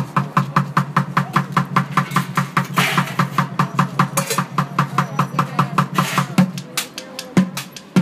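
Bucket-style street drumming on upturned plastic mail crates and a plastic bucket: a fast, steady beat of about seven hits a second that stops about six and a half seconds in, followed by one last knock a second later.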